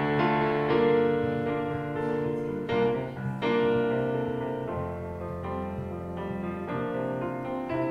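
Slow piano music: sustained chords, with new notes struck every second or so.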